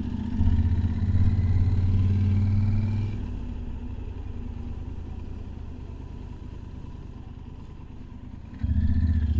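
Motorcycle engine running while riding. The engine note is loud for the first few seconds, drops to a quieter run about three seconds in, and picks up again near the end.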